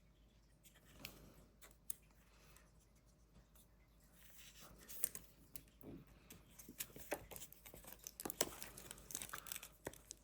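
Trading cards being handled: faint rustling and light clicks, getting busier about four seconds in.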